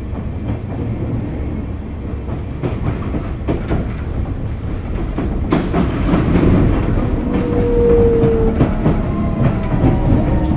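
Sotetsu 8000 series electric train with a Hitachi GTO-VVVF inverter, heard running: a steady rumble with wheels clicking over rail joints. In the second half the inverter and traction motors start to whine, with several tones gliding slowly downward as the train slows.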